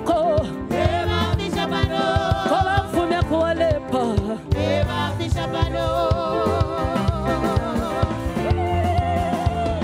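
A woman singing a gospel song into a microphone with vibrato, over band accompaniment with a steady drum beat.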